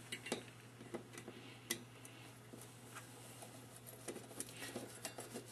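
A few faint, scattered ticks and clicks of a Phillips screwdriver working small screws out of a metal heat sink, over a low steady hum.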